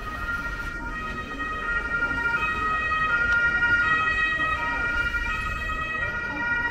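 Emergency vehicle siren sounding in steady alternating two-tone steps, getting louder over the first few seconds and then easing slightly as it passes. Low street noise runs underneath.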